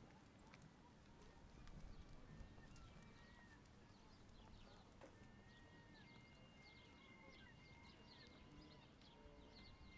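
Faint outdoor train-station platform ambience: scattered short high chirps, thin held whistle-like tones in the second half, and a few light clicks over a low steady background.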